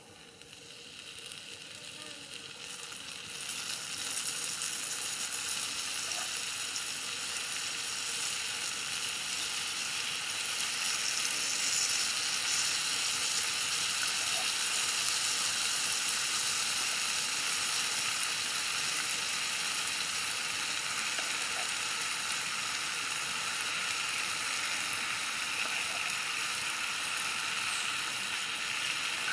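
Tire track eels sizzling on a hot stone slab over a wood fire, with a wet seasoning paste spooned over them. The sizzle swells over the first few seconds, then holds steady.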